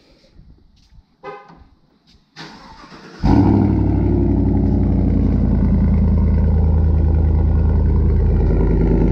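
Chevy Silverado Z71 pickup's engine being started: the starter cranks briefly about two and a half seconds in, the engine catches just after three seconds and settles into a steady, loud idle.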